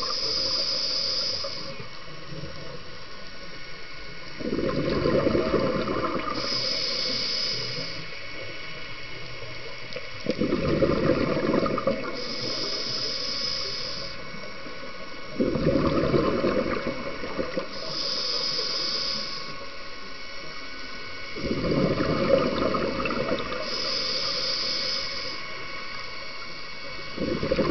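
A scuba diver's regulator breathing underwater: a hiss on each inhalation alternating with a low bubbling rush on each exhalation, repeating about every six seconds.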